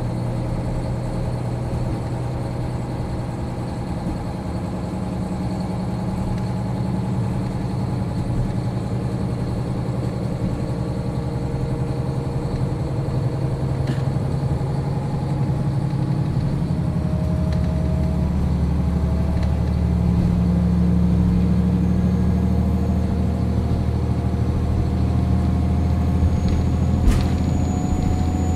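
JR Hokkaido KiHa 40 diesel railcar's engine running with a steady drone that slowly grows louder. In the second half a faint whine rises gently in pitch, and there is one sharp click near the end.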